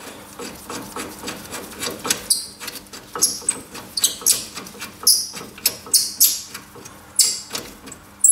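Irregular sharp metallic clicks and scrapes as a brake caliper carrier bolt is worked into place by hand at the wheel hub. The clicks come roughly every half second to second, loudest in the second half.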